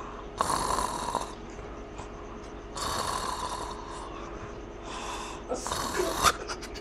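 A sleeping man snoring: three rasping snores, each under a second long, roughly every two and a half seconds.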